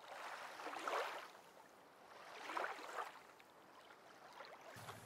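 Faint, soft swells of washing water, three of them about two seconds apart, like gentle waves. A low hum comes in near the end.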